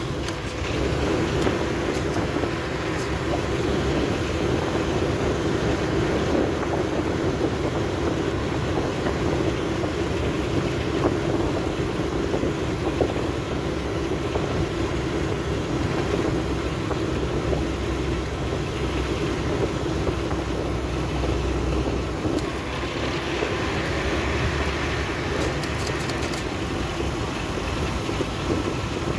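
Ford Explorer engine idling steadily with the AC compressor running. The compressor clutch engaging and releasing is the on-off cycling that the owner traces to shorted wiring and a faulty ECU pulse to the compressor relay.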